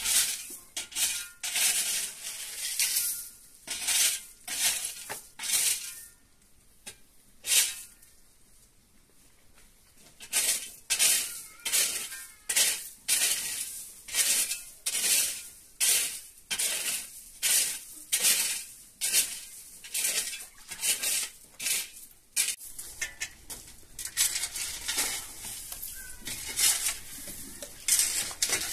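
Repeated rhythmic scraping strokes, about one and a half a second, with a pause of about four seconds after the first few.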